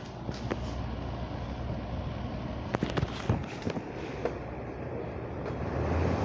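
An electric fan running with a steady airflow noise and a low hum that grows louder near the end, with a few knocks and rustles from the phone being handled and carried.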